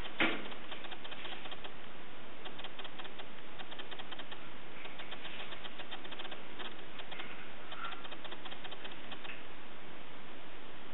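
Hair rustling and crackling in quick faint ticks as a flat iron is twisted and clamped through it, over a steady hiss, with one sharp click just after the start.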